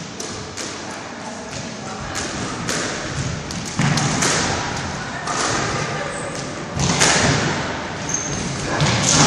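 Squash ball being struck by rackets and slapping off the court walls during a doubles rally: a string of sharp knocks, one every half second or so, with a few louder thuds.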